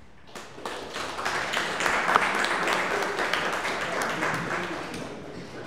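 Audience applauding: many hands clapping, building up within about a second and fading toward the end.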